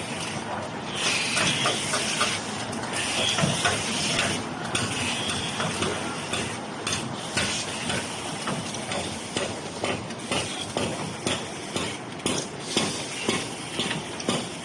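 Automatic facial tissue box packing machine running: continuous mechanical clatter and hiss with many short knocks, settling into a regular beat of about two knocks a second in the second half.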